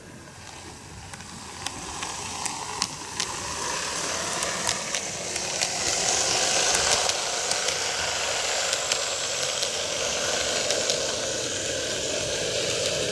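Greenmax N-gauge Kintetsu 12410 series model train running on TOMIX canted track: a steady rolling whir of wheels and motor with scattered sharp clicks at the rail joints. It grows louder over the first half as the train comes close, then holds steady.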